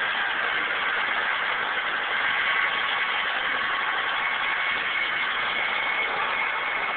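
UH-60 Black Hawk helicopter running on the ground: a steady rush of turbine and rotor noise with a thin, even whine, unchanging in level.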